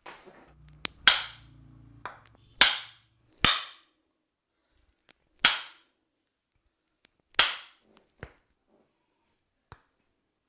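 A series of sharp impacts: five loud strikes, each with a short ringing tail, spaced irregularly over several seconds, with a few fainter clicks in between.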